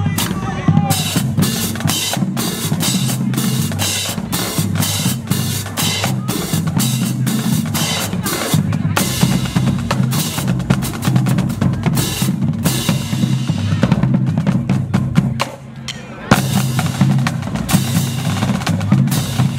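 Marching drumline playing: snare drums and bass drums beating fast, driving rhythms with crash cymbals clashing over them. The playing drops away briefly about three-quarters of the way through, then picks up again.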